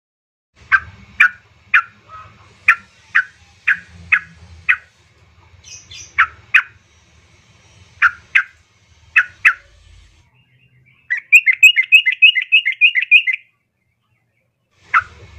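Female yellow-vented bulbul (trucukan) calling: a run of sharp, separate chip notes about two a second, then near the end a quick chattering trill of about a dozen notes. It is used as a lure call to set a male calling.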